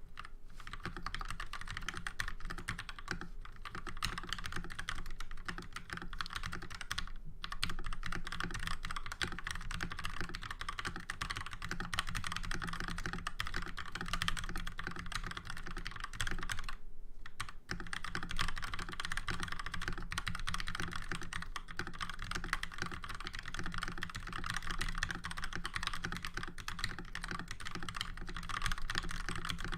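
Steady fast typing on a Cooler Master MasterKeys S PBT mechanical keyboard with lubed Gateron Yellow linear switches and Taihao ABS doubleshot keycaps, its case dampened with shelf liner. A dense run of keystrokes, broken by brief pauses about 7 and 17 seconds in.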